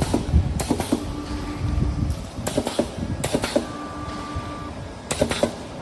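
Automatic angle-cutting webbing strap machine running through its cycle. A motor hums steadily for about a second, then there is a quick run of sharp clacks from the cutting mechanism. The cycle repeats about every two and a half seconds.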